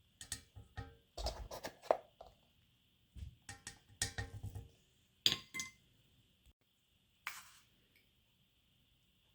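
Kitchen utensils and dishes clinking and knocking in a run of short, irregular taps, with a faint steady high whine underneath.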